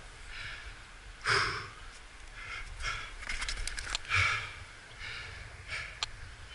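A climber breathing hard close to the microphone, with loud exhales about every second or so, two of them louder than the rest. A few sharp clicks come around the middle.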